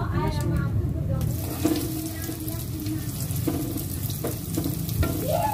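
Pieces of flour-and-sago dough dropped into hot oil in a wok, the oil starting to sizzle about a second in and going on steadily, with a metal spatula stirring and knocking against the pan a few times.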